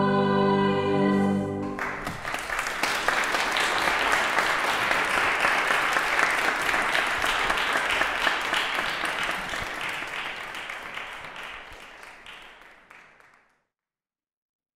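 Choir and pipe organ holding a final chord, which breaks off about two seconds in. Applause follows and gradually fades away near the end.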